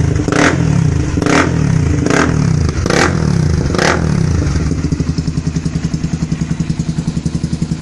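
Honda CB300R single-cylinder engine through an aftermarket sport exhaust, revved in five quick throttle blips about a second apart, then dropping back to a steady, pulsing idle for the last few seconds.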